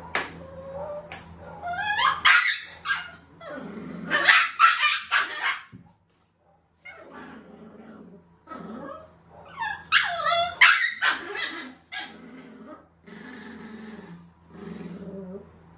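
Shih Tzu puppy growling and barking in loud outbursts about two, four to five and ten to eleven seconds in, with quieter growls between, over a steady low hum. It is resisting being trimmed with scissors, out of fear of them.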